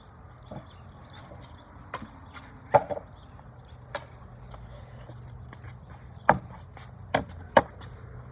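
A handful of short, sharp knocks and taps at irregular intervals, three of them much louder than the rest, over a steady low hum.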